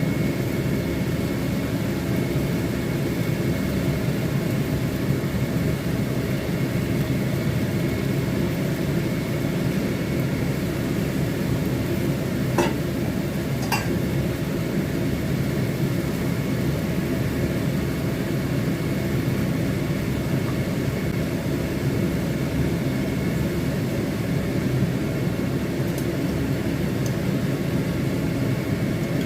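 Steady whirring noise with two light clinks about halfway through.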